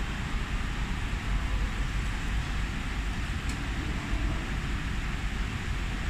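Steady background noise, a low rumble with hiss, without distinct strokes or a machine rhythm.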